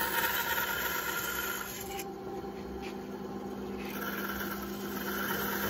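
WEN 3959 9-inch benchtop band saw running without a cut, its 2.5-amp motor humming steadily while the blade spins.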